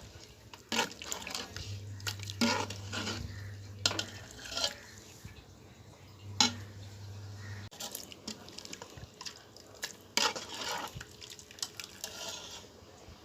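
Metal kitchen utensils clinking and scraping against a cooking pot in irregular short knocks, as food is stirred and handled.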